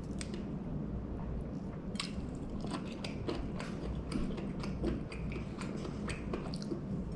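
A person chewing a mouthful of fried bluegill, with many small crisp clicks and crackles throughout.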